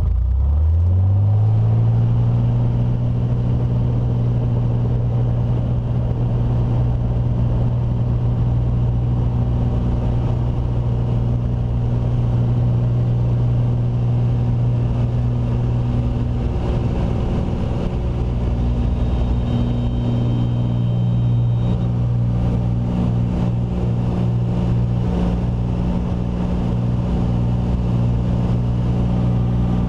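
Single-engine light aircraft's piston engine and propeller, heard from inside the cabin. It rises quickly to full power in the first two seconds for the takeoff roll, then runs steadily at full throttle.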